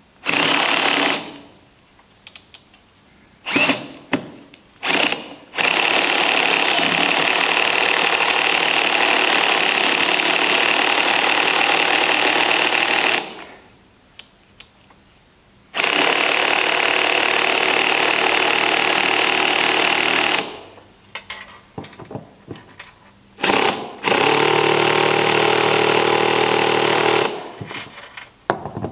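Cordless drill driving No. 12 by 1¾-inch wood screws through new planking into a wooden boat's frame, in runs of a few seconds each, the longest about seven seconds. The drill is on a low torque setting for this first pass that draws the plank down.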